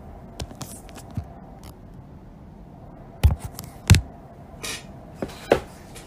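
Knocks, taps and rustles of paper takeout food containers and their lids being handled and set down on a table, with two loud thumps a little over three and four seconds in.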